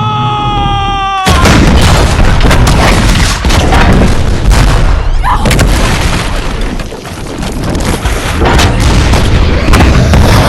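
After the shouted order "Fire!", a ship's broadside of cannons goes off. The many booms overlap into a continuous barrage that lasts about nine seconds.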